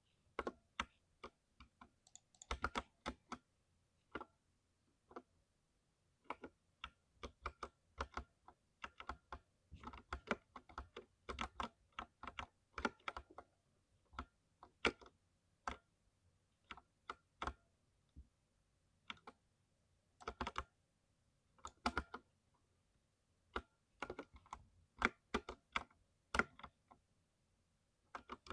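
Mechanical keyboard typing with deep 'thocky' keystrokes, coming in uneven flurries with short pauses between them.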